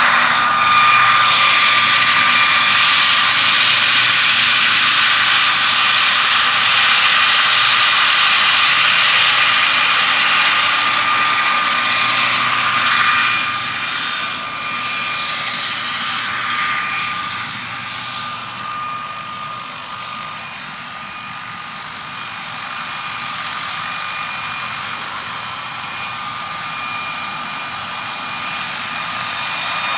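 Turbine-powered 50 kg scale model EC135 helicopter in flight: the turbine gives a steady high whine over the rush of its 3.5 m main rotor. The sound is loud at first, falls away from about the middle on, then rises again a little near the end.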